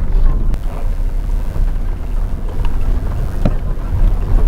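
Wind buffeting the microphone: a loud, steady low rumble that wavers in level.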